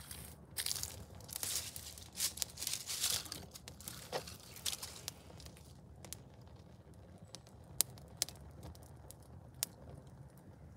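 Small fire crackling as it burns a plastic alarm clock. A dense run of crackles and hisses comes in the first few seconds, then sparser single sharp pops.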